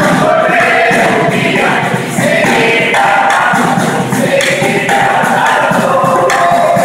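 Murga chorus of mixed voices singing a retirada, the farewell song, in unison, with drum beats under the voices.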